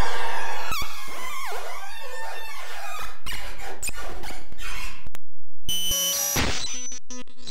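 Experimental electronic noise music: squeaky falling and bending pitch glides over clicks and crackle. About two-thirds of the way in it cuts out suddenly for half a second, then comes back as rapid stuttering, chopped electronic tones.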